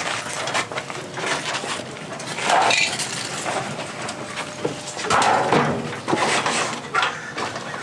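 Irregular knocks and clatter, with a few louder scraping patches, from metal parts and tools being handled.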